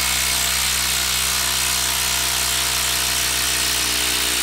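Hilti 12V brushless impact driver running steadily under load, hammering as it backs a long screw out of a wooden log.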